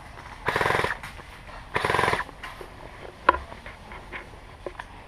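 Two short bursts of full-auto fire from an airsoft electric rifle, each about half a second long and a little over a second apart. A single sharp snap follows a little after three seconds in.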